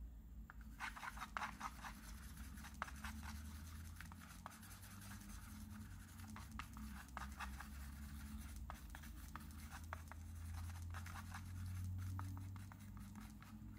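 Faint, irregular scraping and smearing of a thin wooden stick stirring thick paint on a plastic palette, over a steady low hum.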